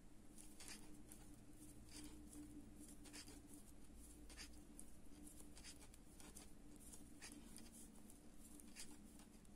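Faint, irregular clicking of thin metal knitting needles as stitches are worked, over a low steady hum.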